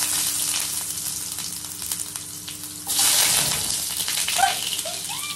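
Sliced onion dropped into hot oil in a wok, sizzling steadily, with the sizzle growing louder about three seconds in.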